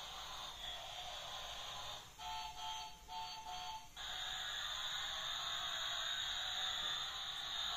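Battery-powered Bumblebee transforming robot car toy playing tinny electronic music through its small built-in speaker as it changes between car and robot. About two seconds in the music gives way to a run of about four beeps, then resumes.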